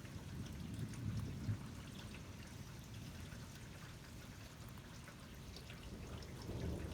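Steady rain falling in a thunderstorm that is easing off, with water running and trickling.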